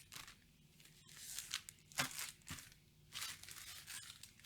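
Foil Yu-Gi-Oh booster pack wrappers being torn open and crinkled in a series of irregular bursts, the loudest a sharp crackle about two seconds in.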